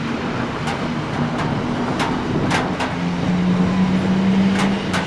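Traffic on a wet street: a steady wash of tyre and rain noise with a vehicle's engine hum that grows louder about halfway through. A few sharp ticks are scattered over the top.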